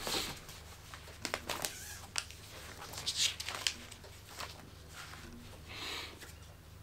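Paper rustling as notebook pages are handled and turned, with a few light clicks and taps, over a faint steady low hum.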